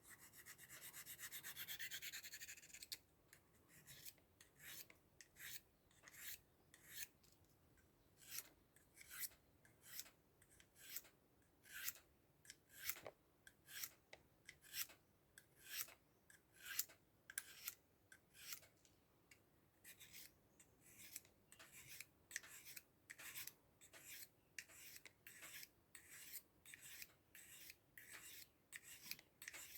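Faint strokes of a Victorinox pocketknife blade on an abrasive sharpener: a continuous rasp for about the first three seconds, then short scraping strokes about two a second.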